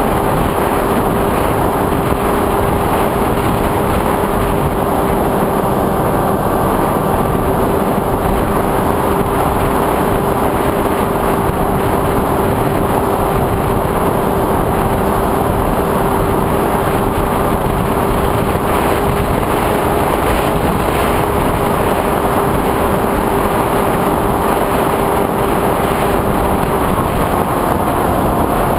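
FPV drone's electric motors and propellers running steadily, heard as a constant rushing noise with a held whine that fades out near the end.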